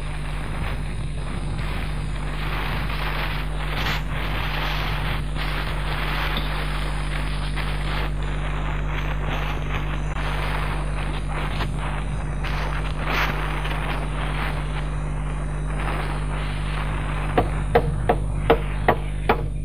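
Steady hiss with irregular scraping over a low hum, then near the end about six quick, sharp hammer taps, roughly three a second, from a cobbler's hammer striking a shoe on the last.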